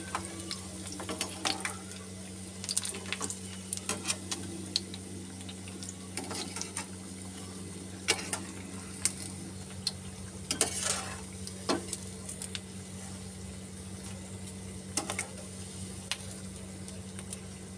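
Bread rolls deep-frying in oil on a low flame: a gentle, steady sizzle with irregular pops and crackles, and the clicks of a slotted steel spatula against the pan, over a steady low hum.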